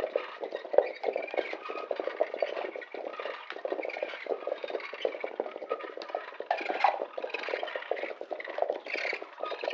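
Hand-made foley sound effects standing in for a truck being hitched up: a continuous rattling clatter of many quick small knocks, with a few louder clacks about seven and nine seconds in.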